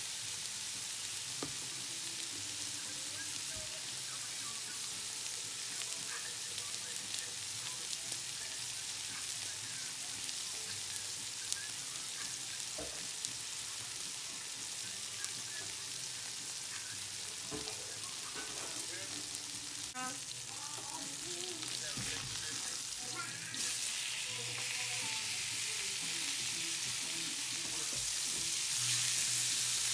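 Seasoned steaks searing in olive oil in a pan on high heat: a steady frying sizzle with small crackles and spatters. The sizzle grows louder about two-thirds through, and again near the end as a steak is lifted and turned over.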